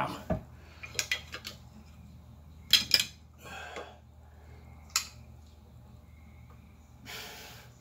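Guitar parts and small hardware being handled and set down on a workbench: light clicks and clinks about a second in, two sharp knocks just before three seconds, another at about five seconds, and a brief noise near the end, over a steady low hum.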